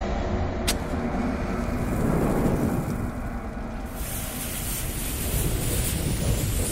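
Logo-intro sound effect of a lit bomb fuse and fire: a steady rumble with hiss, a sharp click under a second in, and brighter hiss from about four seconds in, building toward an explosion.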